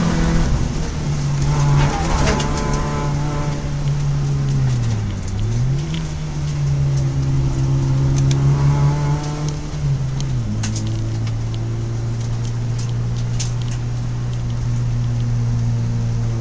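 Citroën Saxo engine heard from inside its stripped cabin under steady driving. The note dips briefly about five seconds in and comes straight back up, then settles to a lower, steady note from about ten seconds on. Scattered sharp ticks run over it.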